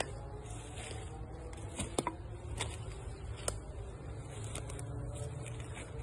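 Footsteps pushing through dense leafy undergrowth: leaves swishing and twigs snapping in irregular sharp clicks, over a steady low rumble.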